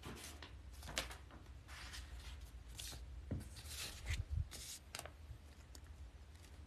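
Paper rustling as sheets are slid and handled over a printed worksheet, in scattered bursts, with a few soft thumps about three and a half to four and a half seconds in.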